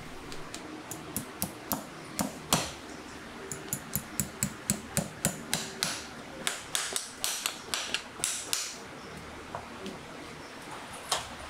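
Farrier's driving hammer striking horseshoe nails, nailing a shoe onto a horse's hoof: a quick run of sharp metallic taps, about three a second, that stops about nine seconds in.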